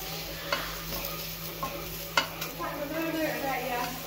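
Uri (flat beans) frying in oil in a pan, sizzling steadily while they are stirred. A few sharp clicks come from the utensil against the pan, the loudest about two seconds in.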